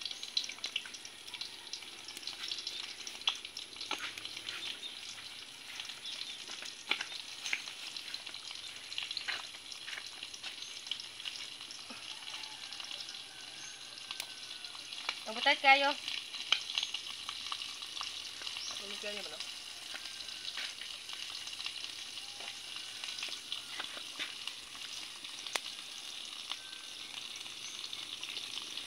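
Salted fish frying in hot oil in a wok, a steady sizzle with repeated scrapes and taps of a spatula turning the fish. About halfway through, a short high call rises over the sizzle as the loudest sound, with a fainter one a few seconds later.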